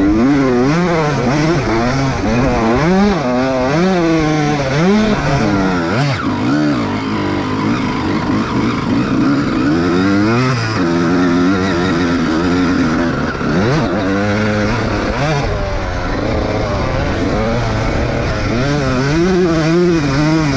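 Dirt bike engine revving up and falling back again and again as the rider accelerates, shifts and eases off, with several sharp drops in pitch.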